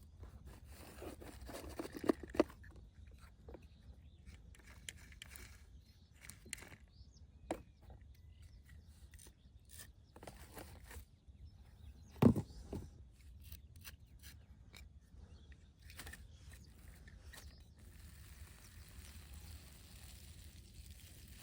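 Handling noises: scattered rubbing, scraping and small clicks, with two sharp clicks about two seconds in and one louder knock about twelve seconds in.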